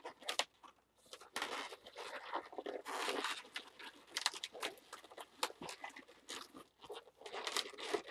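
Latex twisting balloons being handled, twisted and rubbed together by hand, giving irregular rubbing and crinkling sounds.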